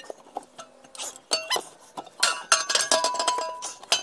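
Metal clinking and knocking, with short ringing tones, as the steel muffler's hanger rods are worked out of their rubber hangers and the loose muffler knocks about under the car. It starts about a second in and is busiest in the second half.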